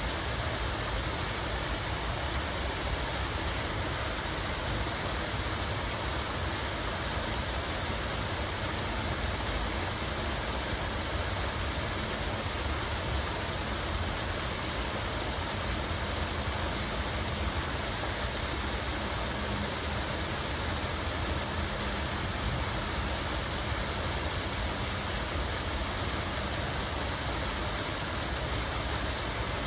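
Water running in a steady, unbroken rush, with no drips or splashes standing out.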